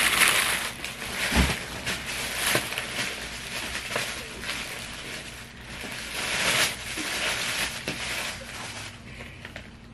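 Clear plastic poly bag crinkling and rustling in bursts as a backpack is pulled out of it, loudest at the start, with a dull thud about a second and a half in.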